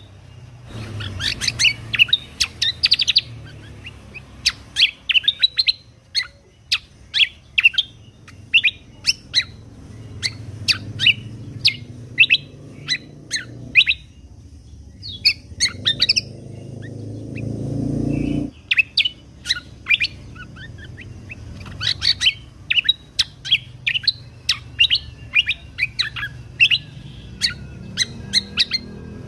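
A kecial kombok (cucak kombo) singing in fast runs of sharp, high chirps, delivered in quick bursts with short pauses. A low rumble swells and cuts off about two-thirds of the way through.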